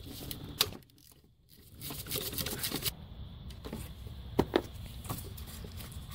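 Hand tools clicking and knocking on metal fittings under a car bonnet: a few separate sharp clicks, and a short stretch of rapid clicking and rasping about two seconds in.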